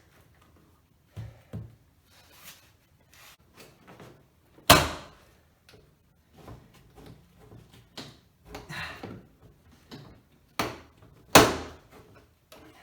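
Interior door trim panel of a 2014 Cadillac Escalade being pried off. Scattered plastic clicks and scrapes from the pry tool, with two loud sharp knocks, about five seconds in and near the end, as the panel shifts against the door and its clips start to let go.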